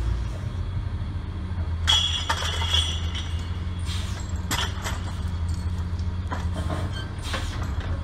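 Log Champ LC550 grapple yarder running steadily, with a low engine drone. Sharp metallic clinks and clanks from the yarding gear come about two seconds in, again around four seconds, and in a cluster near the end.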